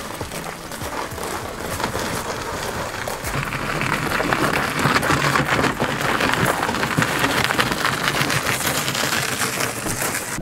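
Wheels of a wooden chicken tractor rolling and crunching over a gravel driveway as it is pushed and pulled by hand, with footsteps crunching on the gravel. The crunching grows louder about three and a half seconds in as the cart passes close.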